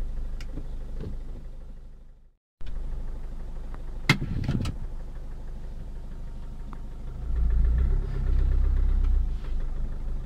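Car engine idling, heard from inside the cabin, with a couple of sharp clicks about four seconds in. About seven seconds in the engine speeds up and runs louder as the car pulls away.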